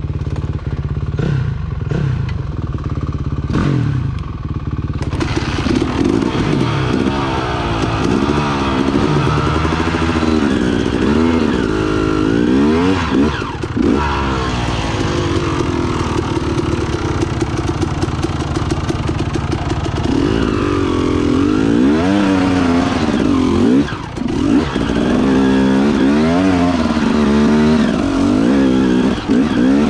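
KTM dirt bike engine running at low revs for the first few seconds, then revving up and down over and over with the throttle as the bike works along a rocky trail.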